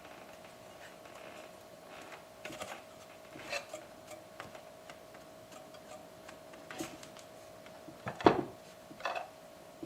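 Scattered light clicks and knocks of parts and tools being handled, with one louder knock about eight seconds in, over a faint steady hum.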